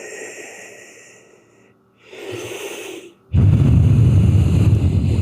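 A person breathing hard into the microphone: a short breath about two seconds in, then a long, loud exhale that blows on the mic from about three seconds in.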